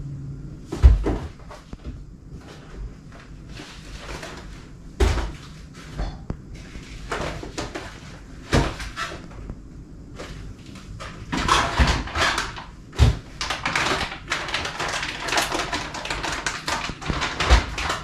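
Groceries being put away on pantry shelves by hand: cardboard boxes set down with several sharp knocks, and packaging rustling, which gets busier about halfway through.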